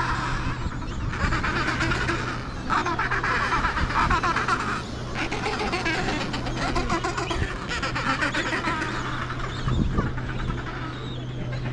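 Adélie penguins calling in a colony: overlapping raspy, rapid chattering calls in repeated stretches of a second or two with short breaks between, over a steady low hum.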